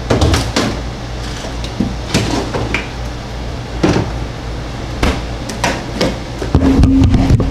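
Handling noises at a refrigerator: a series of sharp knocks and clicks as a plastic food container is taken out, then a louder run of clacks near the end as the container's clip-on plastic lid is pried open.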